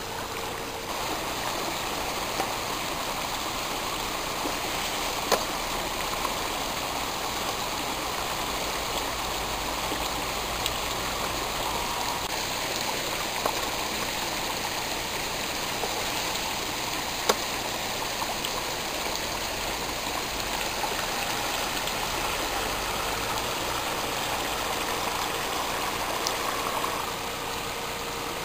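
Steady rush of flowing stream water, with a few sharp clicks. The faint whine of the bait boat's motor is heard at the very start and comes back in the last few seconds.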